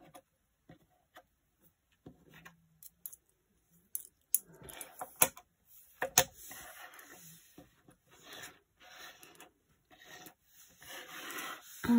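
British coins being slid across a tabletop and set down one by one with the fingers as they are counted: scattered small clicks of metal on the desk, with soft scraping in between, more of it in the second half.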